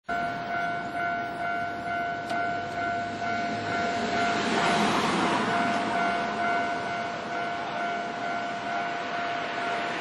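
Japanese railway level-crossing alarm ringing its repeating electronic bell tone, the warning that a train is approaching. A broad rushing noise swells up around the middle.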